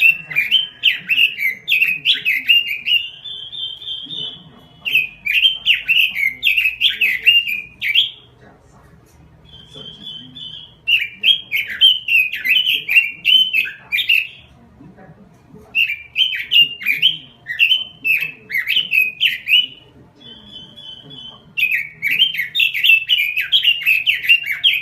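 Red-billed leiothrix (Pekin robin) singing in full, persistent song: bouts of rapid warbling phrases lasting about three seconds each, with a short steady whistled note between some of the bouts.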